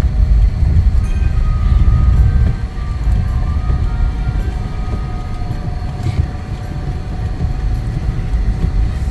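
Steady low rumble of a car driving on a snow-covered road, heard from inside the cabin; it eases slightly after about two and a half seconds.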